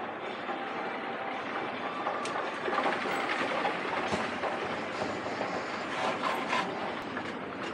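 Escalator running while being ridden: a steady mechanical rumble and rattle from the moving steps and drive, with scattered light clicks.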